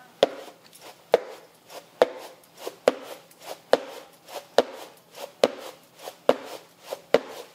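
Coarse maize grits being winnowed in a shallow tray: a sharp knock a little more than once a second as the grits are tossed and caught, each followed by a brief rattle of grains, with fainter taps in between. The winnowing separates the bran from the grits.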